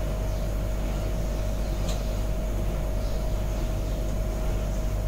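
A steady mechanical hum with a constant thin whine over it, even throughout; a single light click about two seconds in.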